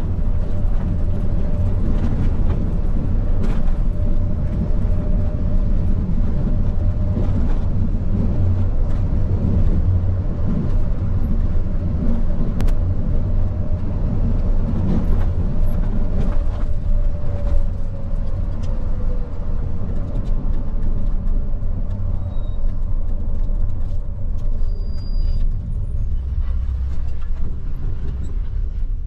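Steady low rumble of a moving bus: engine and road noise, with a faint steady whine that sags slightly in pitch about two-thirds of the way through.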